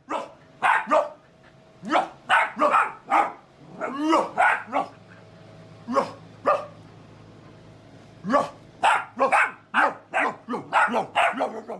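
A dog barking in several quick runs of sharp barks, with short pauses between the runs.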